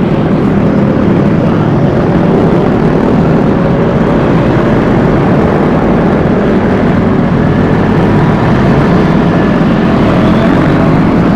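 A Vespa S 125 scooter running at a steady cruise, its engine heard under steady wind and road noise on the rider's microphone.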